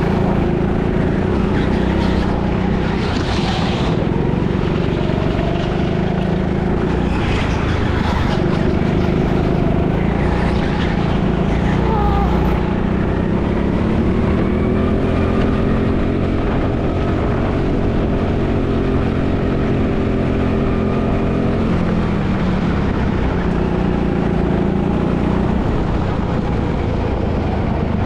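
Go-kart engine running at speed, heard from the driver's seat, with a constant rush of noise. Its pitch rises and falls through the corners, climbs steadily through a long stretch, then drops sharply as the kart slows for a bend and picks up again.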